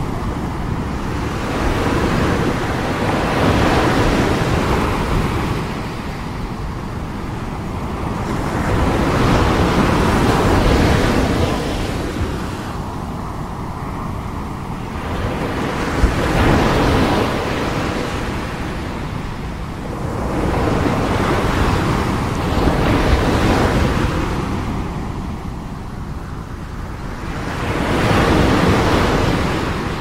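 Ocean surf on a beach: waves breaking and their foam hissing up the shore, the wash swelling and easing in a slow cycle of about five surges, one every six seconds or so.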